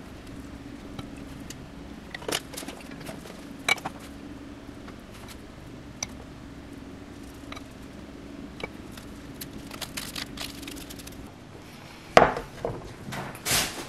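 Kitchen handling sounds: scattered light taps and rustles of ingredients on a wooden cutting board over a low steady hum, then near the end two louder clatters as a metal plate of gimbap rolls is handled on the board.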